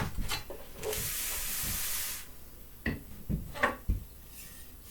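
Handling noises as the xTool D1 laser engraver's frame is flipped over and its last part fitted: a click, a steady hiss lasting over a second, then four light knocks.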